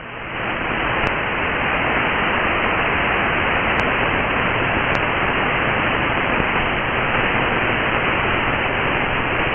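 Steady radio static hiss from an SDRplay nRSP-st software-defined radio tuned between stations while it is stepped down through the low shortwave and 160-metre frequencies. No station is heard. The hiss rises in over the first half second.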